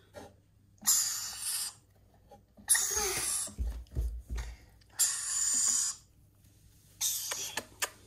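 Baby rainbow lorikeet giving harsh, hissing calls, four of them about two seconds apart. Between the second and third come a few low thuds from the wooden nest box as the chick is handled.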